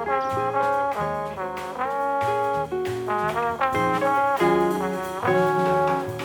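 Jazz quartet playing: a trombone carries a slurred melody over guitar, bass and drums, with cymbal strikes throughout.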